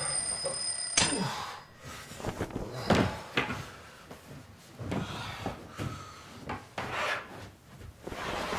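Rubbing, knocks and thumps as a person moves about on a plastic toddler slide propped against a bed. A high steady ringing tone cuts off about a second in.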